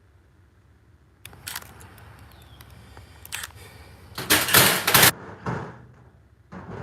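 Metal clicks and rattles of a garage door lock's handle, cylinder and backer plate being handled and turned. The loudest clatter comes about four seconds in, with a few more clicks near the end.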